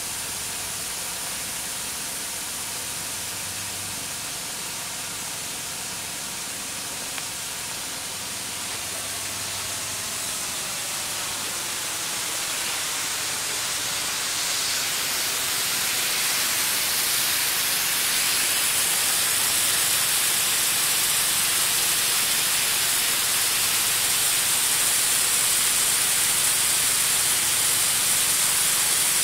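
Backyard snow gun spraying: a steady hiss of air and water from the nozzle, growing louder about halfway through.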